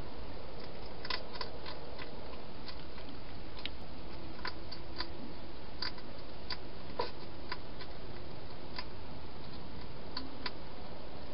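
Hedgehog eating from a bowl: irregular crisp clicks of chewing, some in quick little runs, over a steady hiss.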